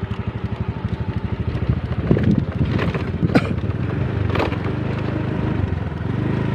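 Small motorcycle engine running at low speed along a rough dirt path, with a few knocks between about two and four and a half seconds in.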